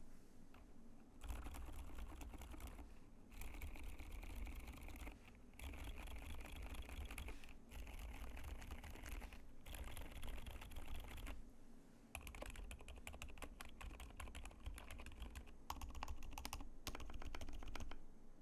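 Fast typing on a YMD96XS keyboard with lubed Outemu Silent Jade Yellow silent tactile switches, a POM plate, a walnut case and PBT keycaps. The typing comes in bursts of a few seconds, with several brief pauses in between.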